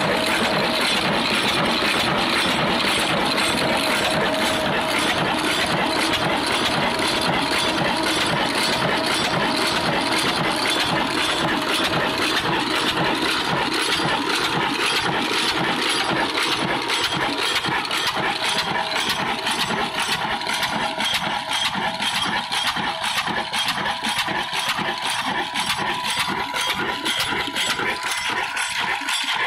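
Old black slow-speed diesel engine of the Ruston type running steadily, with an even, slow beat of about two firing pulses a second.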